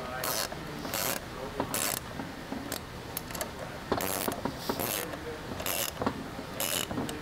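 A wrench ratcheting on a 1/4-20 bolt as it is tightened, clicking in short bursts about once a second with each back-and-forth stroke.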